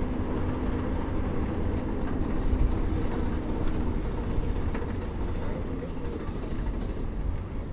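Bus interior ambience while it is moving: a steady low engine hum and road rumble.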